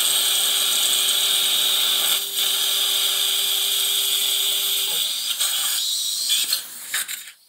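Dental implant surgical drill in a contra-angle handpiece running through a positioning-guide sleeve at the initial drilling step, with water irrigation and surgical suction giving a steady high hiss over a steady motor hum. The hum stops about five seconds in and the hiss dies away near the end.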